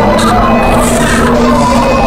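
Music: a loud, dense mix with a steady held low note.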